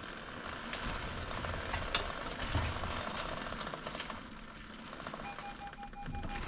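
Nissan Note creeping at low speed with the steering at full lock, making a rapid crunchy clicking from the front wheel: the sign of a worn hub bearing, not the drive shaft first suspected. A pulsed electronic beep, about five a second, starts near the end.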